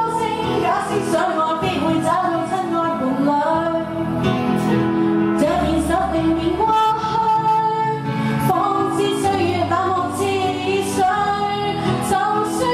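A woman singing a Chinese pop song into a handheld microphone over recorded backing music, holding long notes that glide between pitches.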